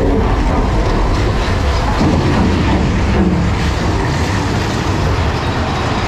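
Big Thunder Mountain Railroad mine train coaster running along its track: a steady low rumble from the wheels, with irregular clatter and rattling from the cars.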